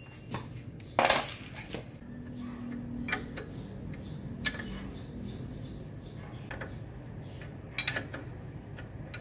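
Metal clinks of a wrench on the lower mounting bolt of a Toyota Innova's new rear shock absorber as the nut is tightened: a few scattered sharp clinks, the loudest about a second in, the last near the end.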